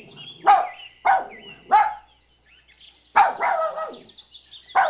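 Puppy yapping: three short high-pitched barks in quick succession, a pause, then two more.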